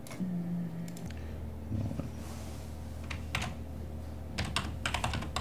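Typing on a computer keyboard: irregular key clicks, coming in quicker clusters in the last couple of seconds, over a low steady hum.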